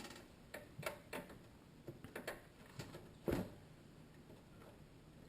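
Faint, scattered clicks and taps of a CPU power cable being handled and plugged into a PC motherboard, with one louder knock a little after three seconds in.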